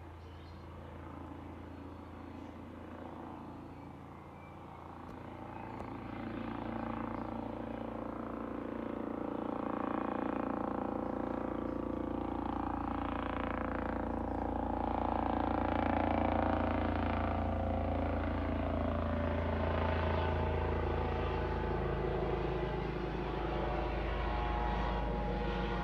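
Police helicopter's rotor and engine drone overhead, growing steadily louder from about a fifth of the way in as it comes closer, with a shifting whine above the low rotor hum.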